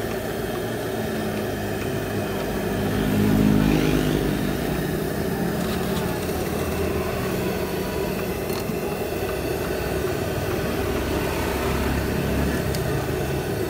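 Motor vehicle engine passing, loudest about three to four seconds in, over a steady rumble of street traffic.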